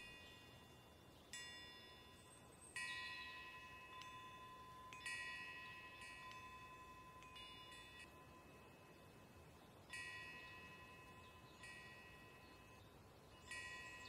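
Faint chimes ringing at irregular intervals, about ten struck metallic notes, each ringing on and fading away.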